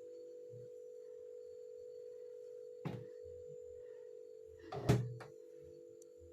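A steady electrical hum made of several close tones, with a sharp click about three seconds in and a louder knock about five seconds in, followed by a lighter click.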